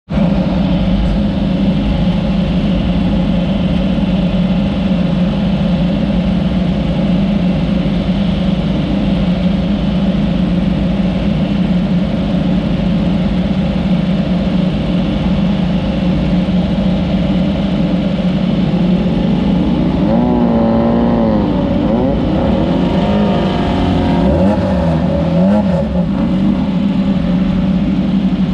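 Class 9 off-road race car's engine running loud and steady, then its revs rising and falling repeatedly for several seconds about two-thirds of the way through before settling back to a steady drone.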